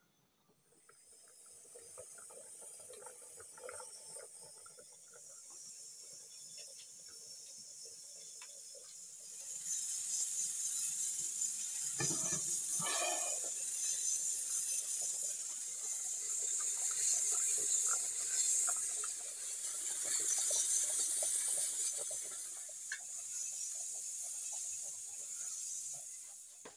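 Pressure cooker on a wood fire hissing steadily as steam escapes past its whistle weight, starting about a second in and getting louder about ten seconds in. About twelve seconds in a metal lid clatters briefly.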